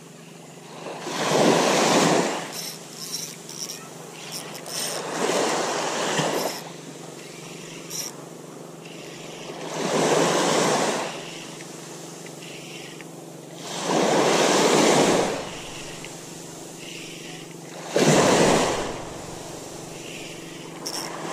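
Small waves washing up on a sand beach, coming in as five swells of surf noise about four seconds apart, with a few light clicks between the first swells.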